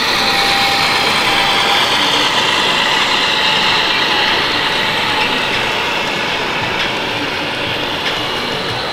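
Radio-controlled model tractors driving, a steady mechanical whir of their motors and gear drives, with a thin steady tone in the first two seconds.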